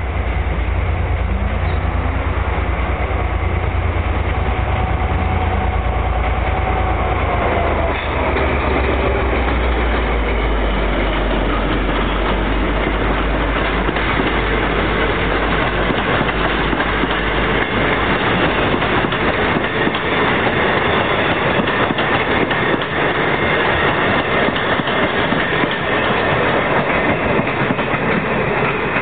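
V/Line N class diesel-electric locomotive slowing under dynamic braking, with a loud, deep engine drone and a whine that falls in pitch about eight seconds in. The drone fades after the locomotive has gone by, and the passing carriages' wheels then clack over the rail joints.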